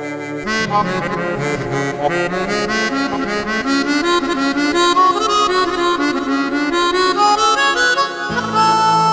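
Melodica patch on a Roland Fantom keyboard playing a quick running melody of many short notes. A held low note underneath stops about half a second in and comes back near the end.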